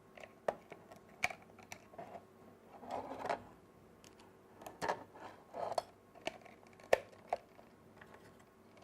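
Scattered small plastic clicks and brief handling rustles as a 9-volt battery is fitted into the Nexia Bridge's battery compartment, with one sharper click about seven seconds in.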